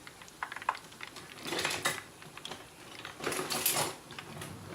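Kitchen utensils clattering and rattling as someone rummages for a utensil to turn food over: a few light clicks, then two bursts of metal-on-metal clatter.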